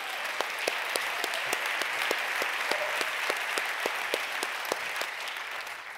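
Audience applauding: a dense patter of many hands clapping that dies away near the end.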